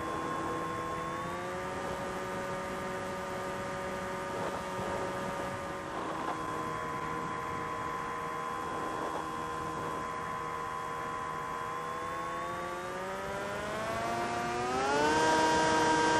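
FPV drone's brushless motors whining steadily with throttle changes: the pitch steps up about a second in, drops back about six seconds in, then climbs steeply and gets louder near the end.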